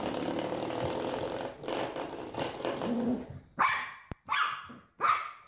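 Small dog growling in a rough, rapidly pulsing run, then three short sharp barks near the end.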